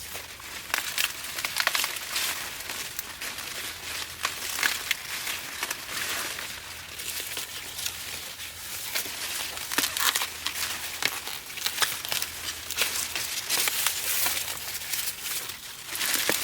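Irregular dry rustling and crinkling: a close, continuous run of short crackly rustles, some louder than others, as of something dry being handled or pushed through.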